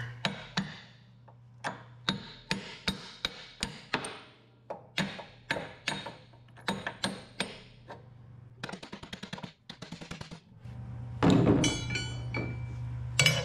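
A hammer striking the steel end of a truck's torque rod again and again, about one or two blows a second, knocking it into line in its frame bracket while a porta power holds it spread. Near the end comes one louder, ringing metal clank.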